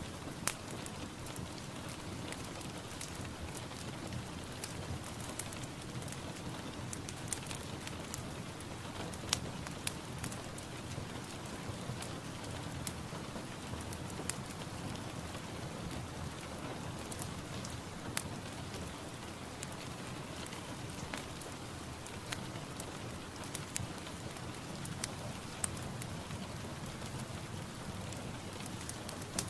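Steady rain falling, with a constant hiss and irregular sharp drips and patters of drops hitting a surface close by.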